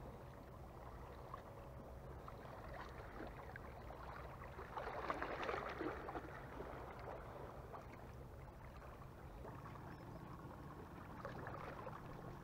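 Small sea waves lapping and washing against breakwater rocks, with a louder wash about five seconds in.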